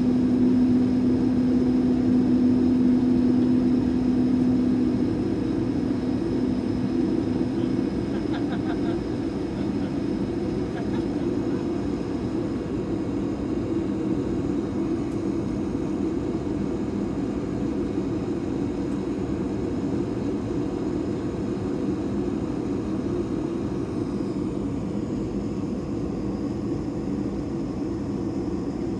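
Steady cabin hum inside an Airbus A220-300 taxiing after landing, from its Pratt & Whitney PW1500G geared turbofans at taxi power and the cabin air system. A low steady tone in the hum fades out about five seconds in.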